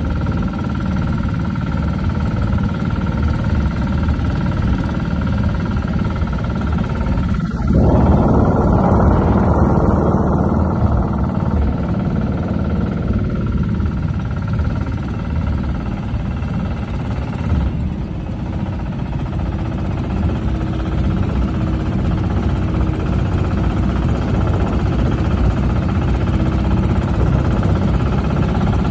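Outrigger boat's engine running steadily under way. A louder rushing noise swells for a few seconds about eight seconds in.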